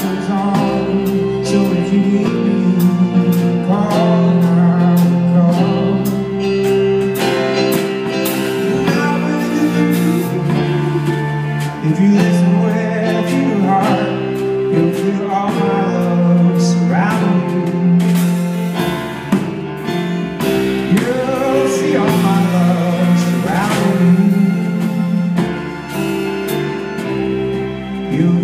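Live band playing a slow song, with drums, electric guitar and keyboard, and a man singing over it.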